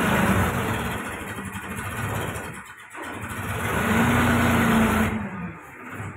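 Escorts Kubota Powertrac tractor's diesel engine running. It dips about three seconds in, swells again, then drops away sharply near the end.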